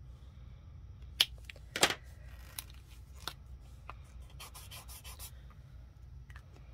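A few sharp clicks of metallic paint pens being capped and handled, the loudest in the first two seconds, then a gold metallic marker's nib scratching across paper in a quick run of short swatch strokes.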